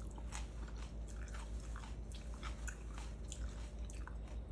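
Faint, close-miked mouth sounds of someone chewing and swallowing, a string of small wet clicks. She is working down a fish bone she feels stuck in her throat.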